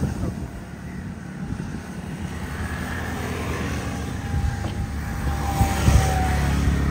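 A motor vehicle's engine running on the road, a faint falling whine in the middle and louder toward the end, with a single knock about six seconds in.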